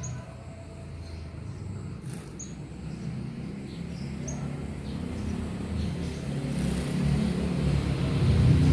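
A few short, faint high chirps from a young brown-throated sunbird near the start, over a low rumble that grows steadily louder throughout.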